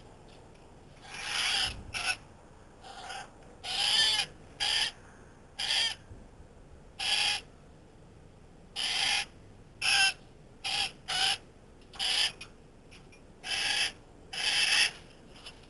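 Currawongs calling: a series of about fourteen short, harsh calls at irregular intervals of roughly half a second to a second and a half.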